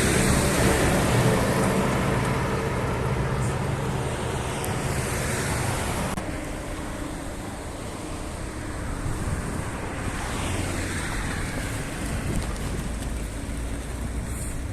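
Street traffic: a vehicle drives past, its engine loudest at the start and falling in pitch as it fades over the first several seconds. A second vehicle passes about ten seconds in.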